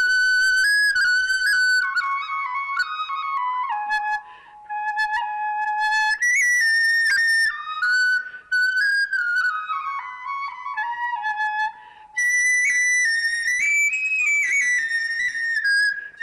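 French seven-keyed flageolet in A-flat playing a melody one note at a time, stepping up and down in pitch, with a few short pauses between phrases.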